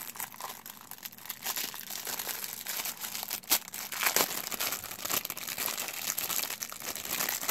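Thin clear plastic bag crinkling and rustling as hands work a small device out of it, with a few sharper crackles partway through.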